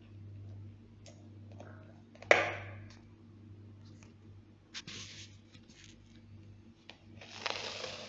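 Metal fork stirring a crumbly bird-food mix in a bowl: scattered clicks and short scrapes of the fork against the bowl, with one sharp knock about two seconds in, the loudest sound, and a longer scrape near the end. A low steady hum runs underneath.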